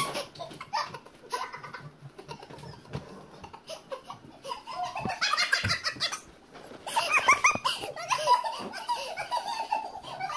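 A group of women laughing hard together, in choppy bursts that get loudest about halfway through and again around seven to eight seconds in.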